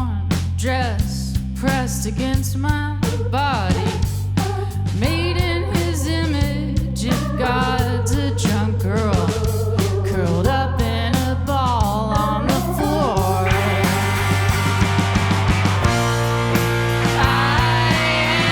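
A rock band playing live: drums keeping a steady beat under bass and guitars, with a lead line that bends and wavers in pitch. About thirteen seconds in, the band gets fuller and brighter.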